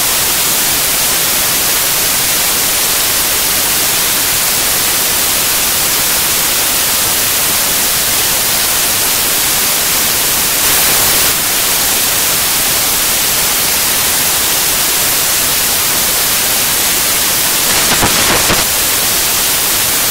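Loud, steady static hiss like white noise, with no tones or voices in it, and two brief louder surges, one about eleven seconds in and one near the end.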